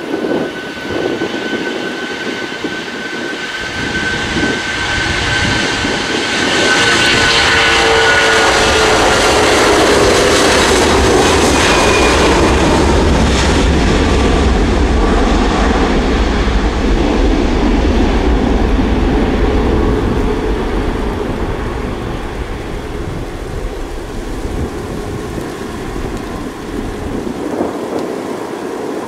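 Airbus A330-300's Rolls-Royce Trent 700 turbofans at takeoff power as the airliner rolls down the runway and lifts off. A high whine slides down in pitch as it passes, and a deep rumble swells to its loudest in the middle before fading as the jet climbs away.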